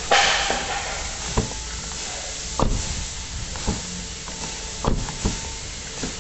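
A door being worked, giving about six short knocks or clunks spaced a second or so apart over a steady hiss: the noise the door makes when it closes.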